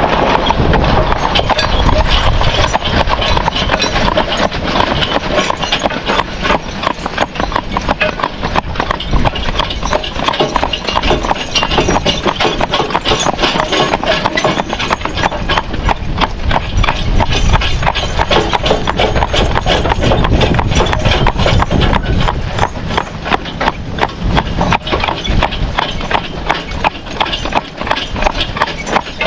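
A team of Suffolk Punch draft horses walking, their hooves clopping, as they pull a wagon with a steady clatter of knocks and rattles.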